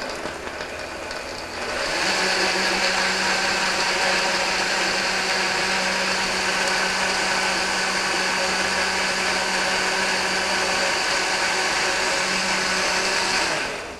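Countertop blender running, blending a thick banana smoothie in its jar: a steady whirring hum that gets louder about two seconds in, holds steady, then stops just before the end.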